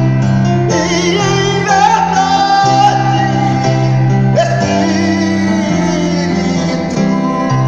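A man singing a worship song over guitar accompaniment, sliding up into long held notes with vibrato.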